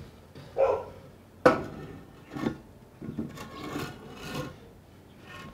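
Wooden boards scraping and rubbing against wood as lumber is slid into place by hand, in several separate strokes. There is one sharp wooden knock about a second and a half in.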